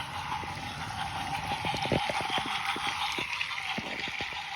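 Toy train running along its track: a steady whirring hiss with many irregular clicks and clacks.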